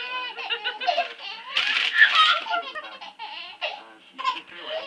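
A baby laughing in repeated bursts of giggles, loudest about two seconds in.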